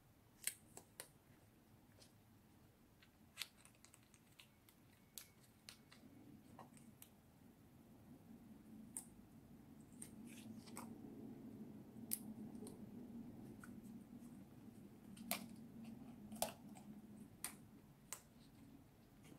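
Faint handling of paper and clear tape: scattered light crackles and clicks as paper ears are pressed and taped onto a paper plate. A faint low hum comes in about six seconds in.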